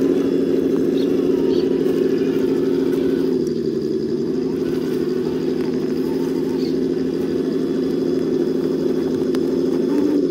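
Steady whine of a Traxxas TRX-4 crawler's 21T Titan brushed electric motor and geared drivetrain under load as the truck crawls slowly, easing slightly a few seconds in.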